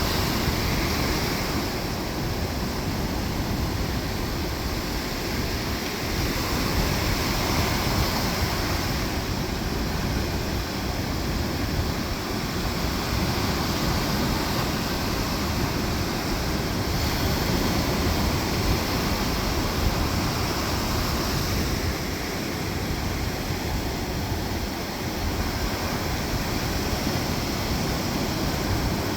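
Ocean surf breaking on a beach: a continuous rushing wash of waves that swells and eases every several seconds.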